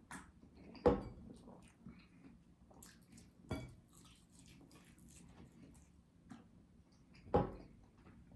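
A person eating sauce-coated chicken nuggets fast, with wet chewing and squishing and small clicks. Three louder thumps come about a second in, in the middle and near the end.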